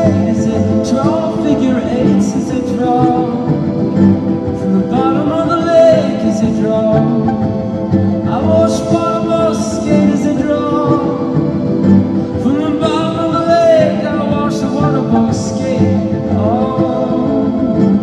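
Live song: a man singing over a violin plucked like a guitar and a steady layered instrumental backing.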